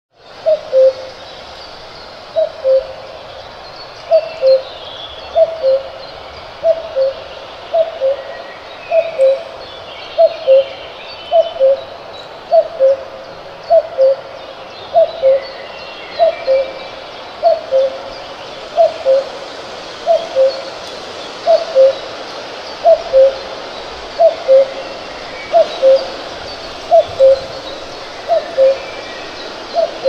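Cuckoo calling its falling two-note 'cuck-oo', the second note lower than the first, repeated steadily a little less often than once a second.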